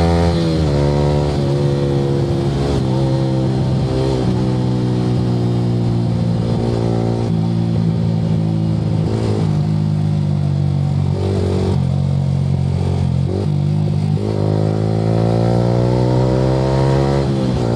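Yamaha R15 V3's single-cylinder engine through an Akrapovic exhaust, ridden hard. The revs drop at the start, then rise and fall with the gear changes, and climb steadily near the end before dropping again with a shift.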